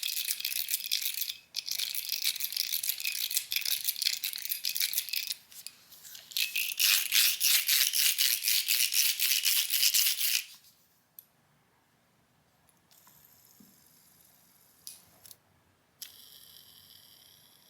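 Metal fidget toy worked in the hand, rattling with rapid metallic clicks for about ten seconds with two short breaks. It then turns much quieter, with a few single clicks and a faint metallic ringing near the end.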